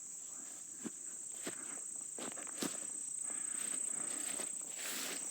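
Footsteps of a person walking, irregular steps and rustles that get busier in the second half, over a steady high-pitched insect chorus of crickets.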